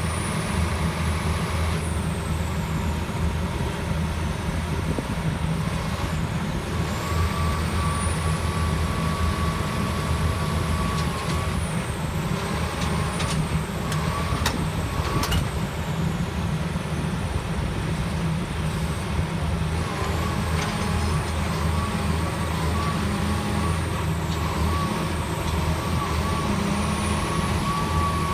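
John Deere 350G excavator's diesel engine running steadily while the machine works, with a higher whine that comes and goes and a few sharp knocks about halfway through.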